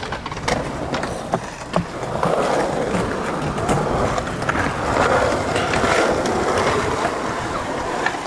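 Skateboard wheels rolling over asphalt: a few sharp clacks in the first couple of seconds, then steady rolling noise from about two seconds in.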